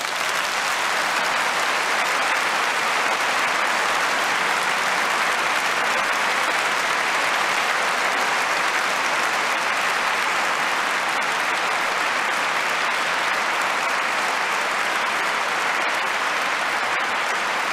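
A large seated audience applauding, a steady, dense sound of many hands clapping at once.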